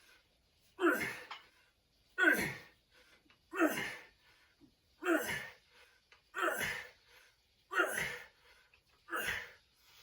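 A lifter's forceful, voiced exhalations, one with each rep of a set: seven short falling bursts, about one every second and a half.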